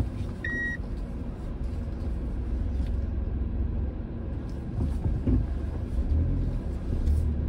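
Low, steady rumble of a car creeping along at walking pace, heard inside the cabin. A short high beep sounds once, about half a second in.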